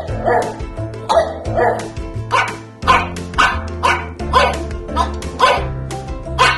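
Pug barking again and again, short sharp barks over background music with a steady bass line.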